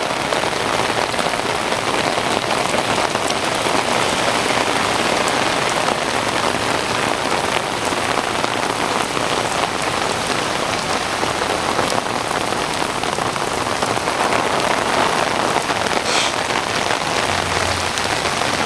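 Steady rain falling, an even hiss of drops at a constant level.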